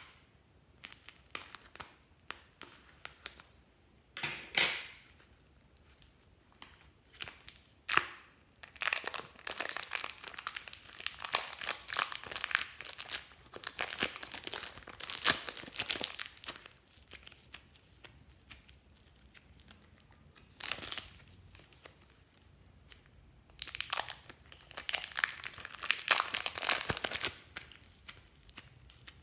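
Thin plastic bags crinkling and tearing as they are pulled open and peeled off soft modelling clay. The crackling comes in irregular bursts, with a long dense stretch in the middle and another near the end.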